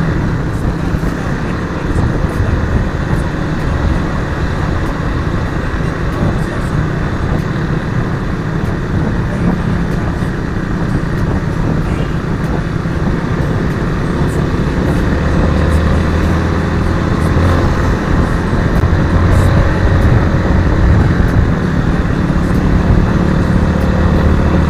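Motorcycle engine running at riding speed with steady wind rush on the microphone. The engine note grows stronger about two-thirds of the way through.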